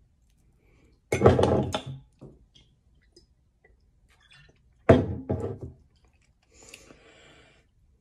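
Liquid sloshing in a glass vodka bottle as it is tipped up and drunk from. There are two loud bursts, about a second in and about five seconds in, and a fainter one near the end.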